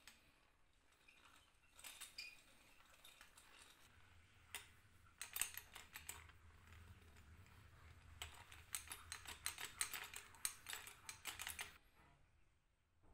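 Faint, quick uneven runs of small metallic clicks and rattles from the rusty gears and frame of a Goodell-Pratt breast drill being handled, a few about two seconds in and a dense run from about five seconds to nearly twelve seconds in.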